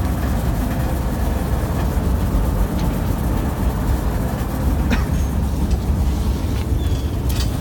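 Fishing trawler's engine and net-hauling winch machinery running, a steady low rumble, with a couple of light knocks from the gear.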